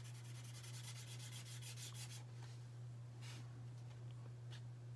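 Felt-tip metallic marker rubbing on a black tag, quick back-and-forth scribbling strokes for about two seconds, then a single stroke a little later. A steady low hum runs underneath.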